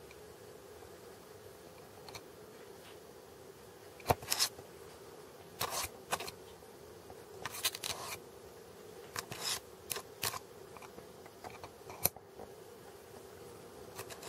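Kitten biting and clawing at thick grey felt: short, crisp scratchy snips at irregular intervals, about a dozen in all, the loudest about four and twelve seconds in.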